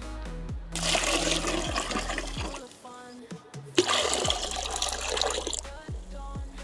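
Liquid poured into a container in two splashy pours of about two seconds each, over background music with a steady bass beat.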